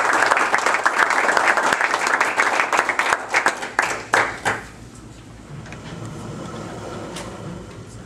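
Audience applauding; the clapping thins out and stops about four and a half seconds in, leaving faint room noise.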